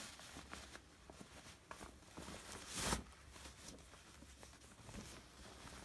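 Fabric drawstring bag being handled and pulled open: soft rustling and small taps of cloth, with one louder swish about three seconds in.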